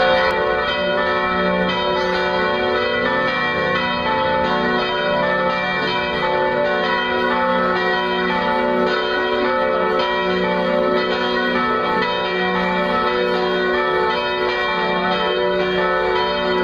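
Several church bells ringing together in a continuous peal, their tones overlapping, with the deepest bell swelling again every couple of seconds.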